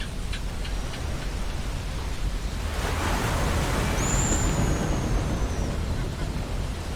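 Ocean surf on a beach: a steady low wash, with a wave breaking and washing in that swells from about the middle. About four seconds in, a bird gives one high, thin whistle that falls slowly in pitch.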